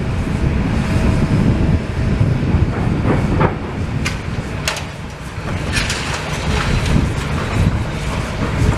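Demolition excavator working, a steady low engine rumble with scattered sharp knocks and clatters of debris, strongest between about three and seven seconds in.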